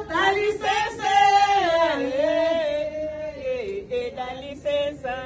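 Several voices singing together in long, drawn-out notes that slide down in pitch about two seconds in and again a little later.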